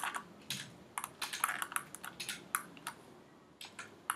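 Computer keys clicking in a quick, irregular run of sharp taps, with a short pause about three seconds in.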